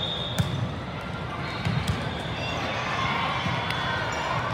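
Volleyball hall ambience: steady crowd chatter and voices echoing in a large hall, with a sharp ball smack about half a second in and another thud under two seconds in.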